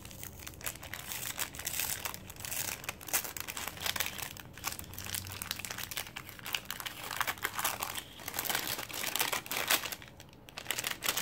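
Crinkling and crackling of a translucent paper envelope handled by hand as its sticker seal is peeled back and it is opened, with a short lull near the end.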